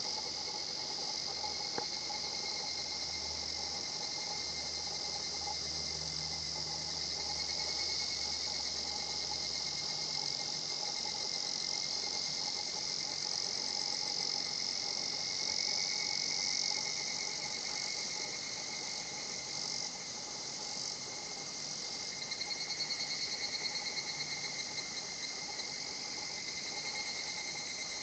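Higurashi (evening cicadas) calling in a steady high-pitched chorus, with one louder, rapidly pulsing 'kana-kana-kana' run about three-quarters of the way in.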